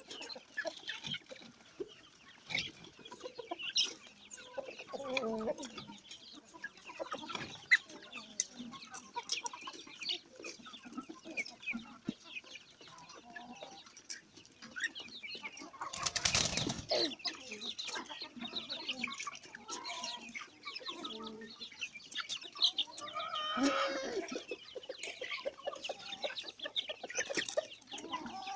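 A flock of free-range village chickens clucking and calling while they feed, with many short overlapping calls. About halfway through there is a brief loud rush of noise, and later a single louder call stands out.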